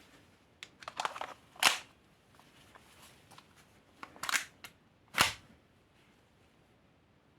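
Sharp mechanical clicks and clacks from handling an ASG CZ-75D Compact spring airsoft pistol, in two clusters, each ending in a louder snap, about a second and a half in and again about five seconds in.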